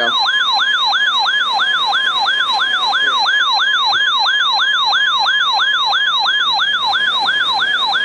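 Alert siren of a RadioShack 12-993 NOAA weather radio sounding for a received tornado warning: a loud, fast warbling tone that sweeps up and down about four times a second without a break.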